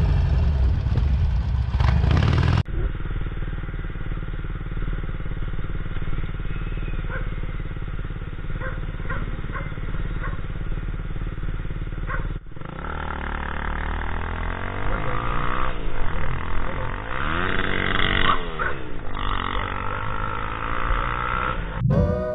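Motorcycle engines and wind, heard from the riders' own cameras across several cuts: first a loud, steady run with wind, then a steady low engine hum. In the later part, engine notes rise and fall and cross one another, with a brief brighter, higher sound about 18 seconds in. Guitar music comes in at the very end.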